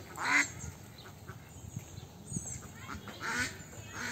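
Domestic ducks quacking: one loud, harsh call just after the start and more calls about three seconds in, with faint high chirps in the background.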